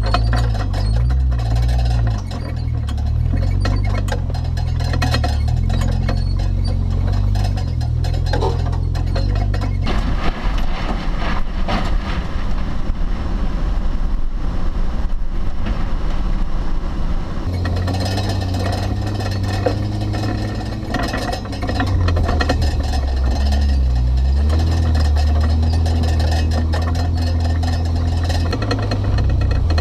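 A full-size SUV's engine running as it drives slowly over a rough dirt trail, with bumps and rattles. The bumping is heaviest in the middle stretch.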